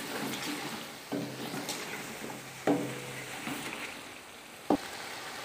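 Wooden spoon stirring potato chunks frying in masala in an aluminium pot, knocking against the pot three times, with faint sizzling and a low hum that comes and goes.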